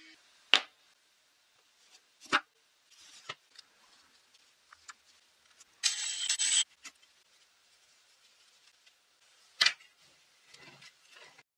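Wooden parts of a home-made rounding jig being handled and set down: a few sharp wooden knocks, the loudest about half a second in and near the end, with a short scraping rub in the middle and small clicks between.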